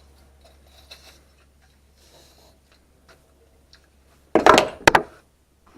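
Faint clicks of tools and pipework being handled, then about four and a half seconds in a brief loud scrape and clatter of metal lasting about half a second.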